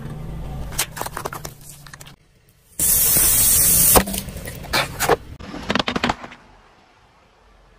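Car tyre rolling over and crushing packaged items, with low engine hum: sharp plastic cracks, then a loud hissing spray for about a second as a plastic soda bottle bursts about three seconds in, followed by a run of cracks and crunches as drink cans are flattened.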